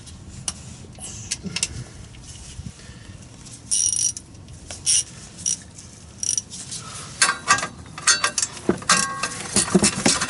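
Socket ratchet clicking in short bursts as 10 mm cover bolts are backed out, then a busier run of ratchet clicks and metal clinks in the last few seconds.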